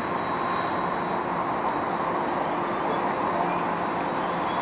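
CH-77 Ranabot light helicopter in flight, its engine and rotor making a steady drone.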